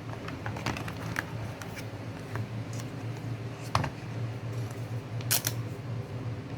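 AirPods Pro box being opened by hand: scattered crinkles and small clicks of cardboard and paper packaging, with a sharper click a little under four seconds in and a short crackle about five seconds in.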